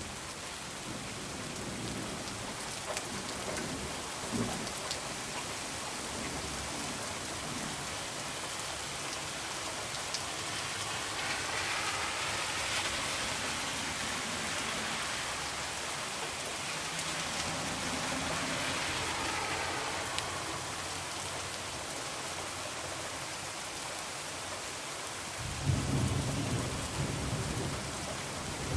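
Heavy rain falling steadily, swelling for several seconds in the middle. A low rumble of thunder rolls in near the end.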